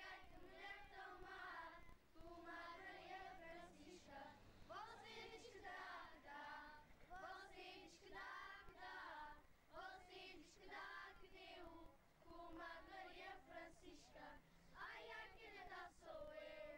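A children's choir singing cante alentejano unaccompanied, the sung phrases separated by short breaths.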